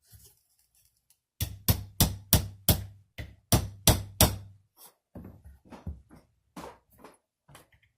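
A small hammer striking a punch to drive a roll pin into an AR-15 part. There is a quick run of about nine hard taps, roughly three a second, then lighter, irregular taps.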